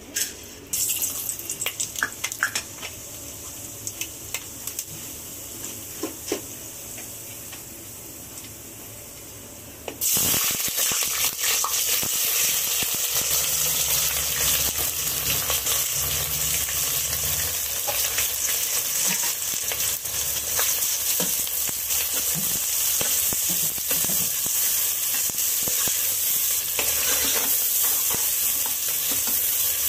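Onion and whole spices frying in hot oil in a pot, with stirring: a quieter sizzle with a few clinks at first, then about ten seconds in the sizzling suddenly becomes much louder and stays loud and even.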